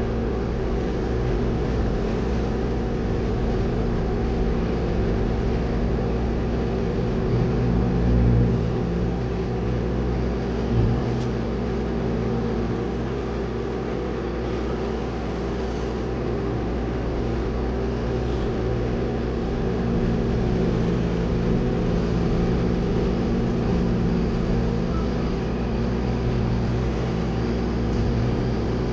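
Concrete mixer truck's engine running steadily, heard from inside the cab.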